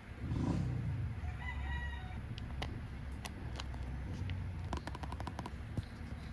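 A rooster crowing briefly in the background, followed by a series of light sharp clicks and taps, some in quick clusters.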